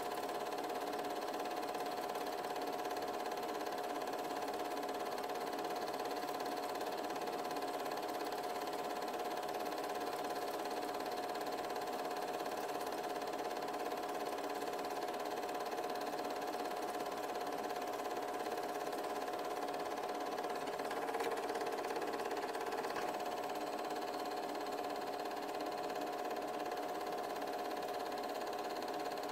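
An 8mm film projector running: a steady mechanical whir with a constant tone through it.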